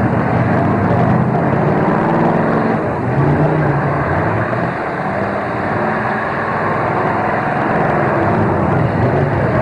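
Several demolition derby cars' engines running and revving together as the cars manoeuvre and ram one another, rising and falling in pitch over a steady din.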